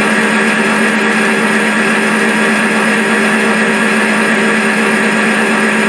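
Steady diesel locomotive engine sound: an unchanging hum with a hiss over it as the train rolls by.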